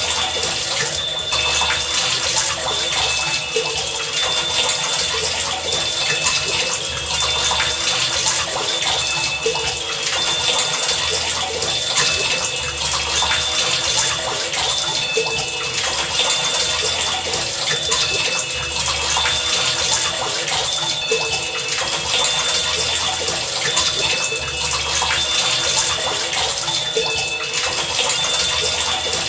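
Heavy rain as a dense, steady hiss, with short high tones and a low pulse about every two seconds running under it.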